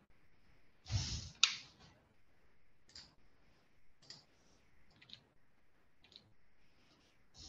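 Computer mouse clicking quietly, a few separate clicks about a second apart, with a louder rustle and a sharp click about a second in.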